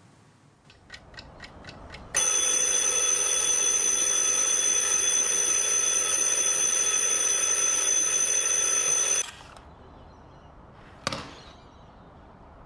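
Analogue alarm clock ticking quickly, about five ticks a second, then ringing loudly with a steady bell tone for about seven seconds before stopping abruptly. About two seconds after the ringing stops comes a single sharp knock.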